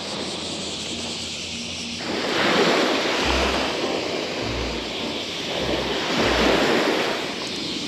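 Small waves breaking and washing up a sandy beach, swelling twice, with wind on the microphone and a few low thumps from the wind buffeting it.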